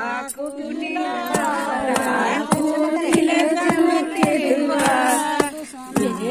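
Women singing a folk chant together while a long wooden pestle held by many hands is struck down in time, a thud about every half second under the singing.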